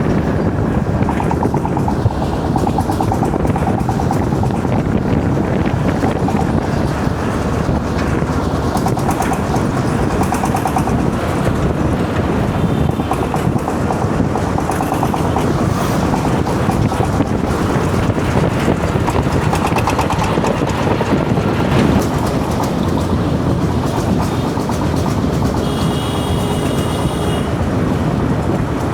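Diesel engines of Lata trolleys and earth-moving machinery running steadily at a loading site, with a brief high-pitched tone near the end.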